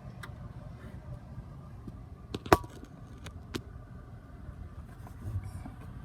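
Several sharp clicks and knocks of plastic trim being pried and handled loose in a car trunk, the loudest a single crack about two and a half seconds in.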